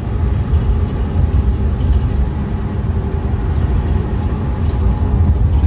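VW single cab pickup driving along, its engine running steadily with road noise under it. The engine is running smoothly and well after its tune-up.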